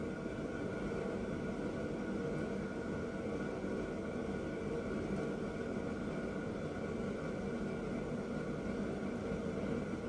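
Steady background hum and hiss with a few faint constant tones, unchanging throughout and without any clicks or tool strokes.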